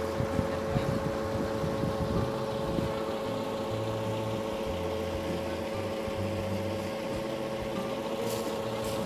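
A heavy truck's diesel engine running steadily at idle, a constant droning hum. There are a few soft low thumps in the first three seconds.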